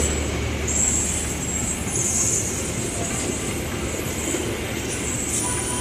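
KA Serayu passenger train's coaches rolling slowly into the station, steel wheels running on the rails, with high-pitched squeals that come and go.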